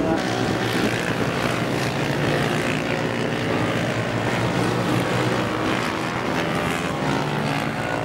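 Several racing motorcycle engines running hard as a group of bikes goes through a corner, their pitches overlapping and rising and falling as they pass.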